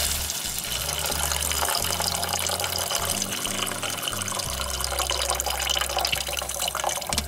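Water poured in a steady stream into a stainless steel pot of vegetables cooking in butter, the pour cutting off abruptly near the end.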